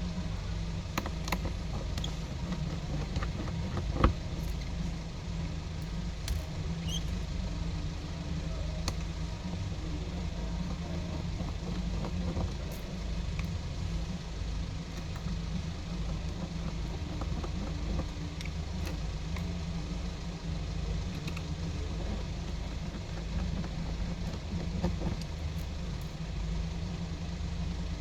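Scattered small clicks and taps of a precision screwdriver and screws on a smartphone's frame as the screws are driven back in, with one sharper click about four seconds in, over a steady low hum.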